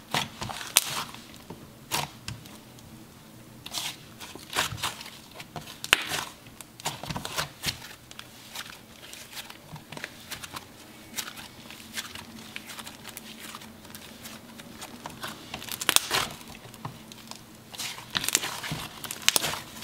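Thick snow butter slime being stretched, folded and pressed by hand, giving off irregular sticky crackles and clicks.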